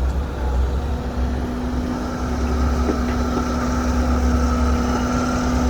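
Heavy diesel machinery running steadily: the engine of an excavator or dump truck working the site, a constant low rumble with a steady hum that settles in about a second in.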